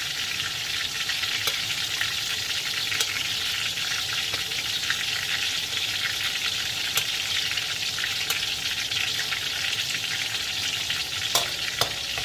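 Marinated milkfish frying in hot oil: a steady sizzle with scattered small crackles and pops.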